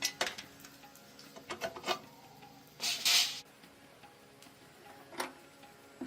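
A few sharp clicks and light knocks, as of tools or small metal parts being handled, with a short hissing burst about half a second long about three seconds in.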